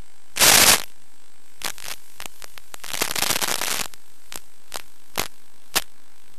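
Steady hiss of static from an analog FPV video link recorded in the goggles, broken by a loud crackling burst of interference about half a second in, a longer crackly stretch around three seconds in, and several sharp clicks.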